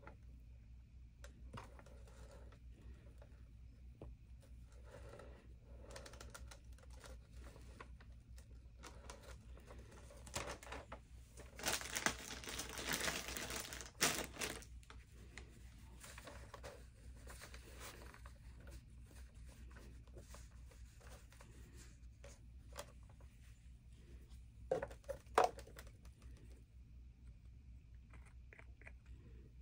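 Tissue paper crinkling and rustling as it is handled, loudest for about two seconds some twelve seconds in, with scattered light taps and clicks on the table and a short second rustle near the end.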